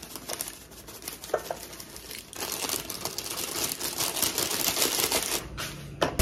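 Dry oats rustling and crackling as a hand and cup scoop and pour them in a glass jar: a dense fast crackle for about three seconds in the middle. A short knock comes near the end.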